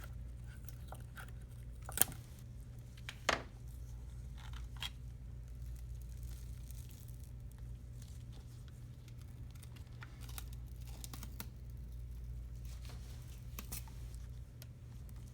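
Touchscreen digitizer being pried off a Lexus IS 250 navigation LCD with a screwdriver: faint tearing and crackling of the adhesive letting go, with scattered ticks and two sharp clicks about two and three seconds in, over a steady low hum.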